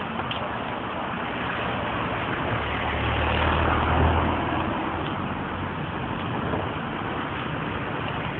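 Road vehicle running along a street, a steady engine and road noise that swells louder with a deeper rumble about three to four seconds in.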